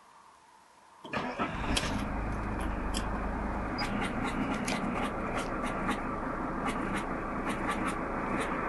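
Mercedes-Benz E290 TD's five-cylinder turbodiesel starting about a second in, then idling with sharp irregular knocks, about three a second. The knocking comes from a broken alternator one-way clutch pulley.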